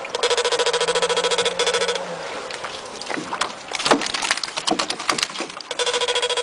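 Electric fishing shocker buzzing in a fast, even pulse while switched on, cutting off about two seconds in. A scatter of sharp knocks and slaps follows from caught fish flapping in the boat, then the pulsed buzz starts again near the end.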